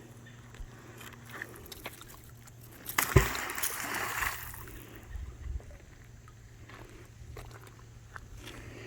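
A thrown fishing magnet hits the lake water about three seconds in: a sharp splash that washes on for about a second.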